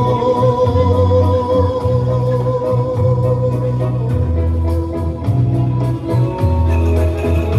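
Cumbia dance music from a loudspeaker, in an instrumental passage: a long held organ-like keyboard note over a repeating bass line and steady hi-hat ticks. The held note fades out about five seconds in.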